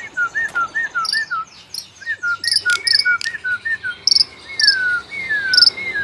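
Caged songbirds calling: a run of short arched whistled notes, about three a second, with sharper high chirps over them.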